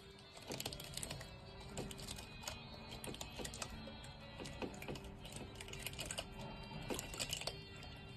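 Quick, irregular light clicking and tapping over quiet background music.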